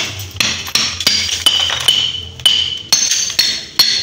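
A small hammer striking again and again at the smashed glass face of a Sony CRT television picture tube, about two blows a second. Each blow rings briefly and high.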